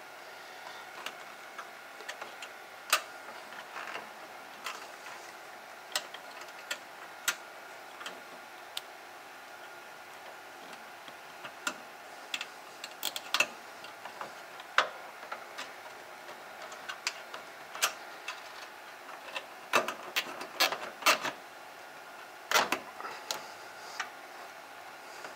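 Irregular light clicks and ticks of a bundle of Cat6 Ethernet cables and nylon zip ties being handled and fastened, with a denser run of clicks near the end. A faint steady hum lies underneath.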